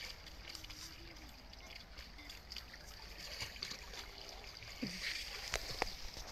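Light splashing of a swimmer's arm strokes and kicks in calm water, with a few sharper splashes about five seconds in.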